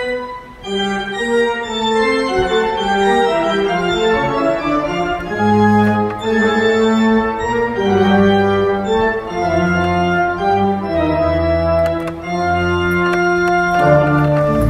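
Kimball pipe organ playing a solo: moving chords and melody over held notes, with a brief dip just after the start and deep pedal bass notes coming in about five seconds in.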